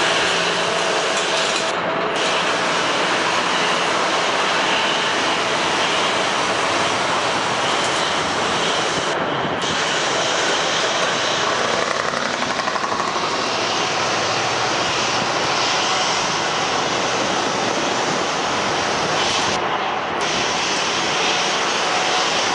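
Jet airliner engines running, a loud steady rush from airliners taxiing and landing close by.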